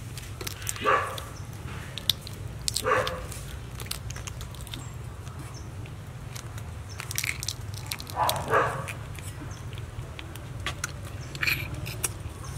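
Cooked prawn shells cracking and being pulled apart by hand, a scatter of small sharp clicks, over a steady low hum. A few short, louder animal calls break in four times.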